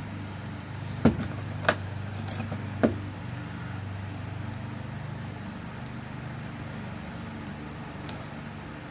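Small metal lock-cylinder parts clicking and clinking as they are handled and fitted back together: four sharp clicks in the first three seconds, over a steady low hum.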